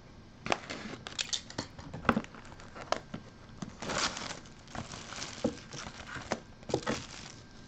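Plastic shrink-wrap crinkling and tearing as it is pulled off a sealed football trading card box, with clicks and taps of the cardboard box being handled. The crinkling comes in stretches, loudest about four seconds in and again near the end.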